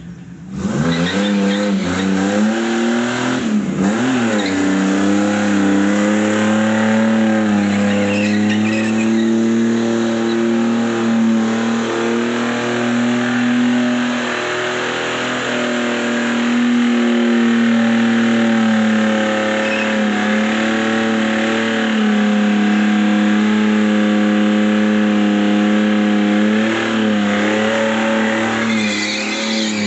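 Holden VR Commodore ute's engine held at high revs through a burnout, with the spinning rear tyres making a dense screeching hiss. The revs jump up and down a couple of times early on, then hold almost steady, sagging briefly a few times.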